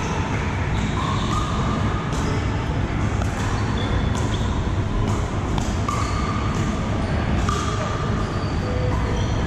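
Pickleball paddles striking the plastic ball in a rally, with more paddle pops from neighbouring courts, irregular sharp hits ringing in a large reverberant hall over a steady low hum.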